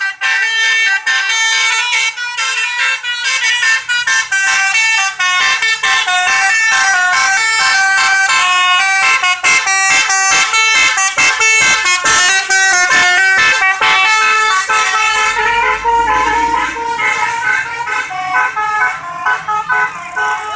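Basuri 'telolet' multi-tone bus horn playing its tune: a loud run of horn notes stepping quickly up and down in pitch, kept up without a break.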